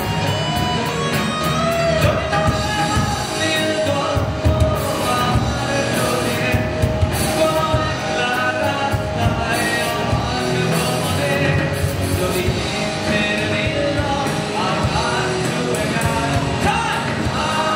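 Live rock band playing: a lead singer on a microphone over amplified electric guitars, loud and continuous without a break.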